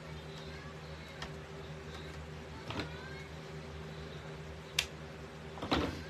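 Ribbon and deco mesh being handled and rustled while tying a wreath, with a sharp scissors snip a little before five seconds in and a louder clatter just after as the scissors are set down on the table. A steady low hum runs underneath.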